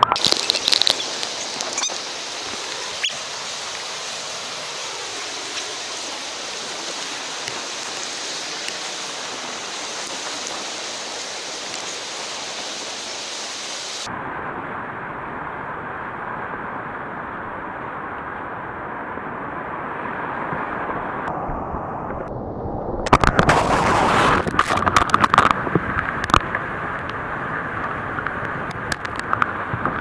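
Whitewater and waterfall rushing loudly, with water splashing over the kayaker and onto the camera. About halfway through, the sound changes abruptly to a duller rush. About 23 seconds in comes a louder stretch of crashing water and knocks lasting a couple of seconds, as the kayak plunges through the falling water.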